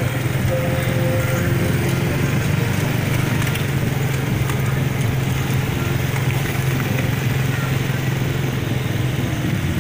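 Motor vehicles in slow-moving traffic: a steady low engine drone with road noise, from motorcycles and the float vehicles around the camera.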